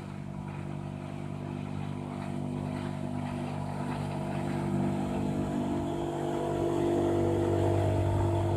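3.5 hp Evinrude four-stroke outboard motor running steadily under way, its even drone growing louder over the last few seconds.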